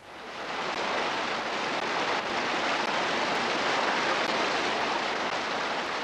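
Rushing whitewater of river rapids: a steady noise of churning water that swells in over the first second.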